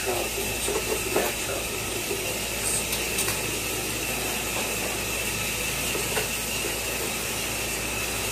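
Shower running: a steady hiss of water spray, with a faint steady high tone under it and a couple of light knocks.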